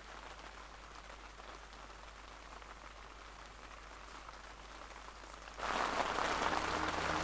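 Heavy rain pouring down on a tent, an even hiss heard from inside it; about five and a half seconds in it suddenly grows louder and brighter.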